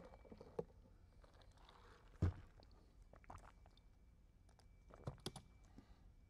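Handling noise near the microphone: faint scattered clicks and knocks, with one louder thump about two seconds in and a short cluster of clicks near the end, over quiet room tone with a faint steady high whine.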